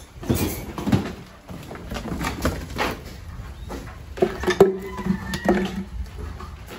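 Scattered knocks and scuffs, with a short animal call lasting about a second, starting about four seconds in.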